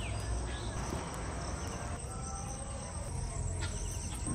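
Insects, typical of crickets, trilling steadily in one high, even tone over a faint outdoor background.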